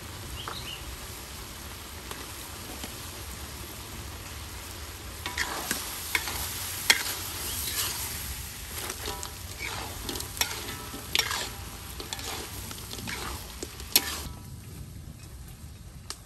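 Pork liver and pork sizzling in a wok while a spatula stirs them. From about five seconds in, the spatula scrapes and knocks against the wok in a quick run of sharp strokes, with two louder clanks. The scraping stops about two seconds before the end, leaving the sizzle.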